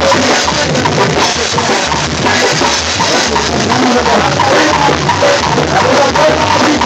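Live duranguense band music at loud volume: a drum kit keeping a steady beat with a pulsing bass drum, under keyboard.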